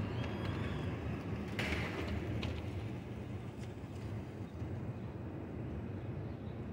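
Steady low rumble of a jet airliner's engines passing high overhead, with a brief higher noise about two seconds in.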